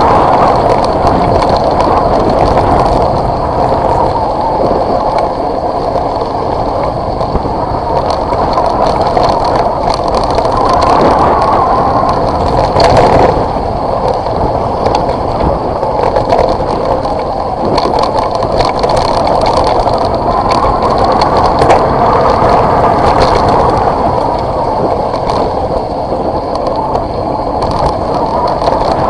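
A vehicle rolling down a gravel dirt road. The tyres keep up a continuous rumble and rattle that swells and fades every several seconds, with scattered small clicks of stones.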